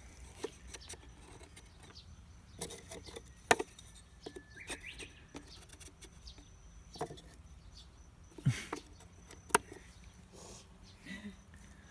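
Scattered knocks and clicks of wooden hive box sections being handled and set in place, with a short bird chirp about five seconds in.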